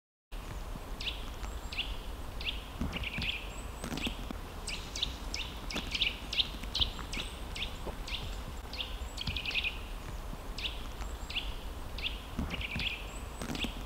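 Eurasian nuthatch calling: a long series of short, sharp, downward-sliding notes, about two or three a second. Now and then they bunch into quick runs. A steady low background noise lies underneath.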